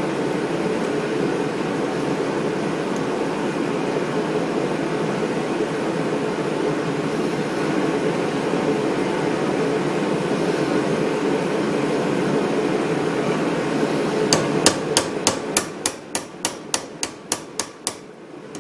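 A steady background noise, then from about fourteen seconds in a small hammer tapping a retainer clip onto a Briggs & Stratton starter motor's shaft, in quick light strikes about three or four a second, seating the clip that holds the new pinion gear.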